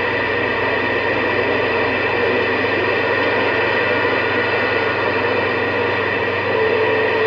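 Radio receiver's speaker giving steady static hiss with a low hum underneath, the open-channel noise heard between transmissions.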